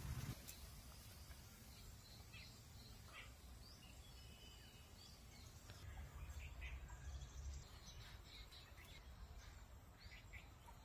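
Near silence: faint outdoor background with a few short bird chirps now and then.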